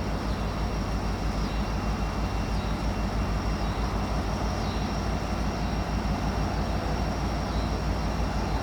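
Diesel freight locomotives running with a steady low rumble.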